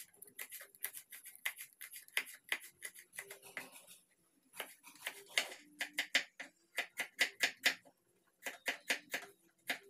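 Kitchen knife slicing red chilies and garlic cloves on a wooden chopping board: quick, irregular taps of the blade on the board, with short pauses about four seconds in and again near eight seconds.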